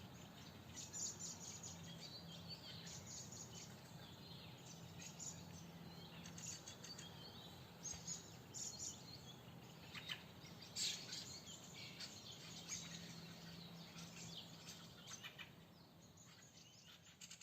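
Several songbirds singing and chirping in a forest, many short high calls and trills overlapping, with a faint steady low hum underneath.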